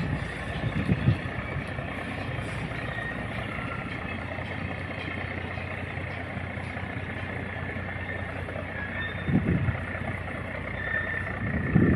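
Diesel engine of a river barge running with a steady low drone; a deeper rumble swells briefly twice.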